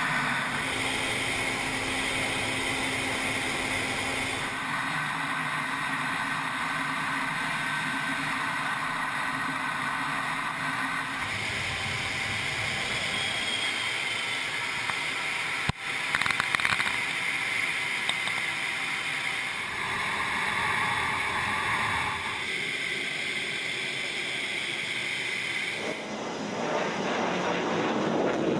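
Aircraft in flight: steady engine noise and rushing air that changes character at each cut between clips. A sudden louder, rattling stretch comes about halfway through.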